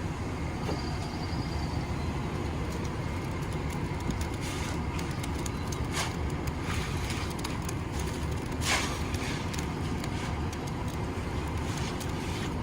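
Steady low rumble of a running motor vehicle engine, with a few brief clicks and knocks about halfway through.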